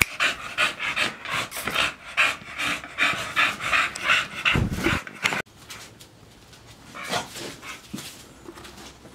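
American Bully dogs panting quickly, about three breaths a second; the panting breaks off suddenly about five seconds in, leaving fainter, scattered breathing.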